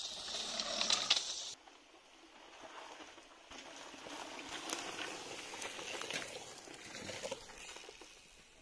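Mountain bikes rolling past on a trail: tyre noise with scattered clicks and rattles, which cuts off sharply about a second and a half in, then swells again and fades as more riders come down the dirt track and pass.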